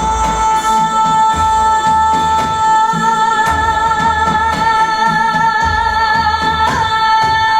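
Dance music with a singing voice holding one long, slightly wavering note over a steady low beat.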